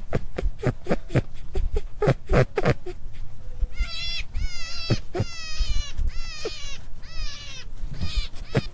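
Rabbit sounds: a rapid series of short clicks or grunts, about four a second, then from about four seconds in a run of high, wavering squeals, each about half a second long.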